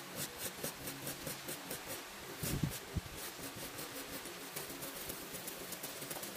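Light, regular clicking, about four clicks a second, with a louder knock about halfway through, over a faint steady hiss and hum, as a tool is handled over a circuit board.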